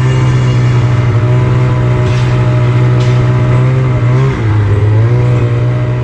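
Engine of a powersports vehicle fitted with a new Straight Line Performance aftermarket exhaust, running at a steady speed. Its note dips briefly about four seconds in, then comes back up.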